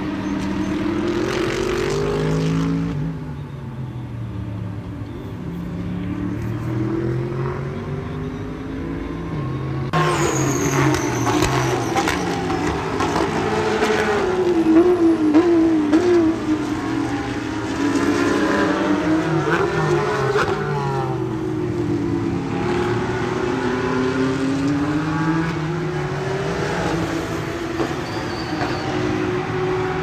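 Race car engines at speed, several at once, their pitch rising and falling as they accelerate and pass. The sound gets louder about ten seconds in.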